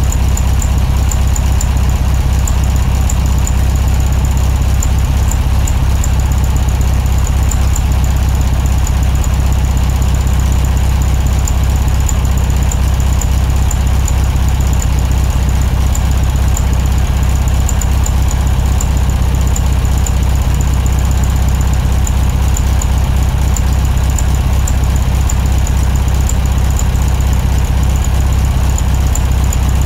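Volkswagen Type 2 bus's air-cooled flat-four engine running steadily at low revs with an even pulsing rumble as the bus creeps along.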